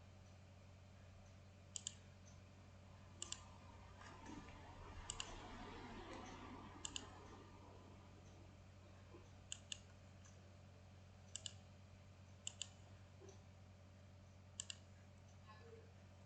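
Computer mouse button clicks, each a quick pair of clicks, about eight times, over a faint steady low hum.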